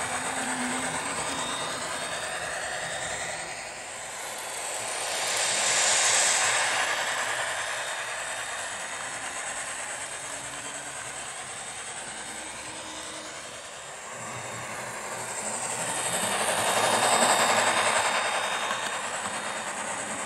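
HO-scale model train, an NSWGR 50 class steam locomotive hauling red passenger coaches, rolling along the track. The running noise swells as the train passes close by, about six seconds in and again around seventeen seconds.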